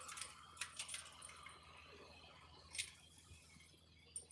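Faint harbour ambience: light splashing and dripping of water against a moored fishing boat's hull, with a few soft ticks and one sharper tick nearly three seconds in.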